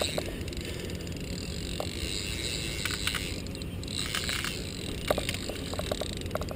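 Steady low outdoor background noise from a small boat on the water, with a few faint scattered clicks and taps, more of them in the second half.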